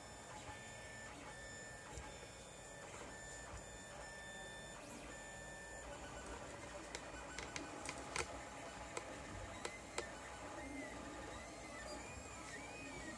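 Lulzbot TAZ 5 3D printer printing, its stepper motors whining in thin tones that warble up and down in pitch as the print head and bed move. A few sharp ticks come about eight to ten seconds in.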